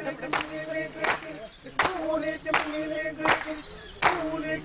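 Singing over sharp claps at a steady beat, about one every three-quarters of a second.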